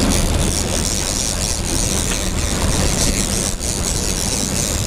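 Sportfishing boat underway at trolling speed: a steady engine drone under the rushing wash of its wake and wind on the microphone.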